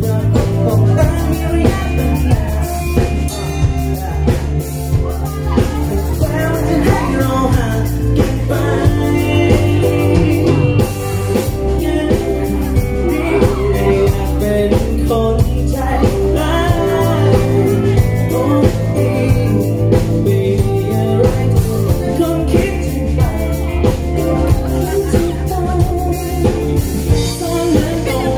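Live pop band playing a song: lead and backing vocals over electric guitar, keyboard, bass and drums, amplified through the PA.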